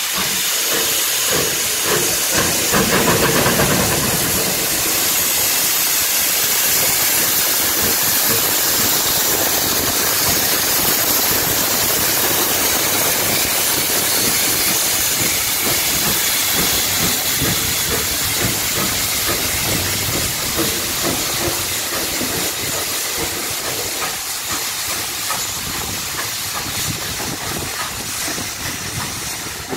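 Merchant Navy class three-cylinder steam locomotive pulling away under power: a loud steady hiss of steam escaping low by the wheels, with its chuffing beating underneath. The sound eases off near the end as the engine draws away.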